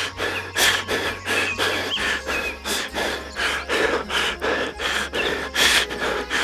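Sound effect of short noisy bursts repeating about three times a second, with faint high chirps among them.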